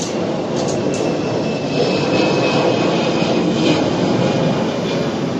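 A loud, steady engine-like rumble with no clear rhythm.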